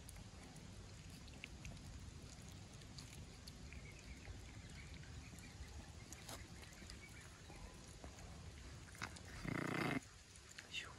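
Low steady background with a few faint clicks, then near the end a single short, loud dog vocalization lasting about half a second.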